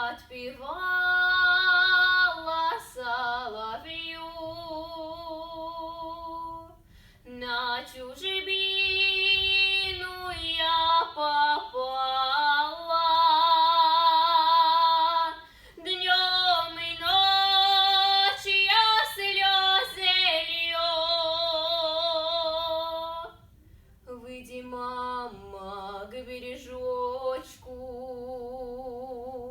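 A girl's solo voice singing a Russian folk song a cappella in folk vocal style. Long held notes waver with vibrato, in phrases broken by short breaths.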